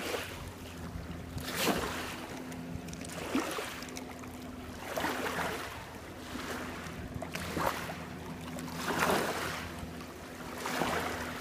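Small waves lapping at the water's edge, a soft swell of wash every one and a half to two seconds, over a faint steady low hum.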